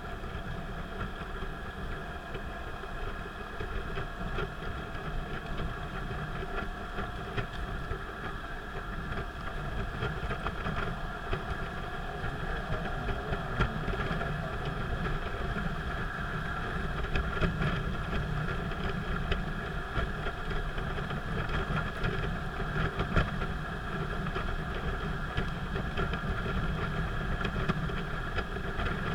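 Car engine and road noise heard from inside a car driving on an expressway, steady and growing slowly louder.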